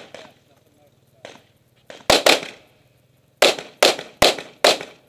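Gunshots from an Open-division competition pistol, each a sharp crack with a short tail: a faint crack a little after a second in, a quick pair about two seconds in, then four shots evenly spaced under half a second apart near the end.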